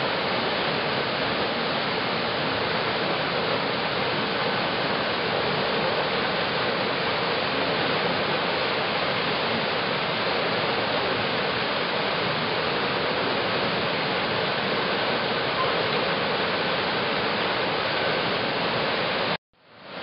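Steady rush of flowing water at the Melingriffith waterwheel-driven beam pump, an even noise without knocks or rhythm; it cuts out briefly near the end and comes back.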